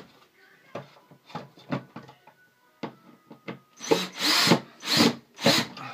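Cordless drill driving a screw through a light fixture's base plate into the ceiling. A few small knocks of handling come first, then four short trigger bursts of the motor near the end.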